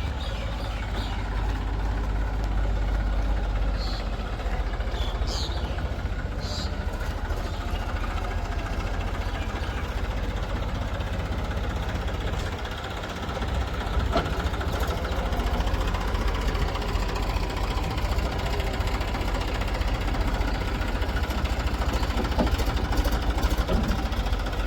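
Heavy diesel engine running steadily with a low, fast chugging rumble.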